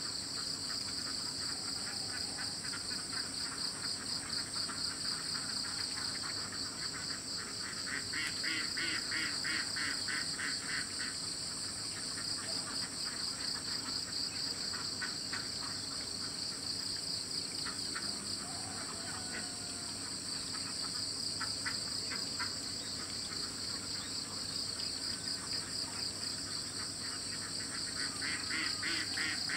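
Insect chorus: a steady, shrill, high-pitched drone of many insects. Over it, a rapid pulsed trill rises for a few seconds around eight to eleven seconds in and again near the end.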